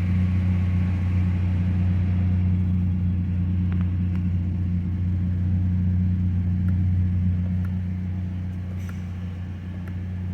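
A 2019 Ford Ranger's 2.3-litre EcoBoost four-cylinder engine idling steadily as a low, even hum, easing slightly quieter near the end, with a few light clicks.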